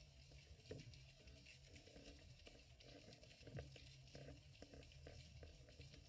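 Faint underwater ambience through a submerged action-camera housing: a low steady rumble with scattered small clicks and crackles.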